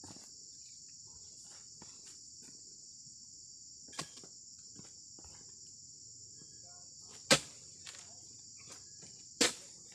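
Steady high-pitched chirring of insects, with a few sharp knocks: a light one about four seconds in, then two loud ones about two seconds apart near the end, as a long oil palm harvesting pole with a sickle is raised and worked against the palm's fronds.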